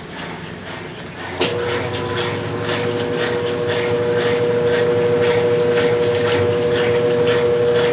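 Brastemp Ative! BWC10 top-load washing machine during its rinse: about a second and a half in, a click and then a motor starts up with a steady hum, over a rhythmic swishing of water and clothes.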